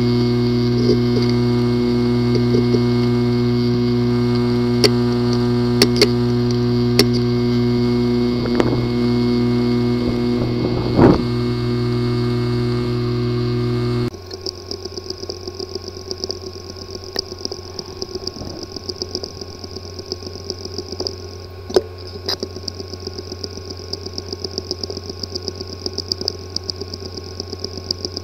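Recordings of hard drives with a physically damaged disk assembly. First a loud, steady buzz with a few sharp clicks. About halfway through it cuts abruptly to a quieter drive clicking rapidly, several ticks a second, over a faint steady whine.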